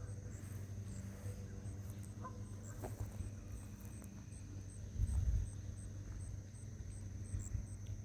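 Insects calling: a steady high drone with a regular high chirp a little more than twice a second, over a steady low hum. A brief low rumble, like wind on the microphone, comes about five seconds in.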